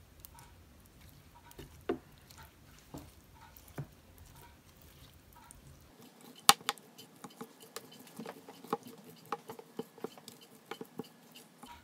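Silicone pastry brush dabbing and spreading beaten egg over a soft fish mixture in a metal baking tray: soft, scattered taps and clicks that come more often from about halfway on, with one sharper tap there.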